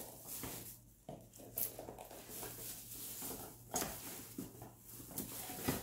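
Light rustling and small knocks of packaged shopping items being picked up and handled, over a faint steady low hum.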